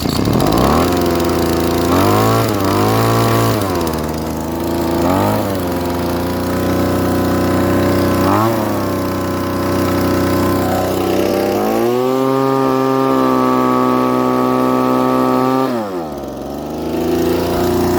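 Gas leaf blower engine running on a newly fitted carburetor, revved up and down repeatedly. It holds high revs for a few seconds past the middle, drops back, and revs up again near the end.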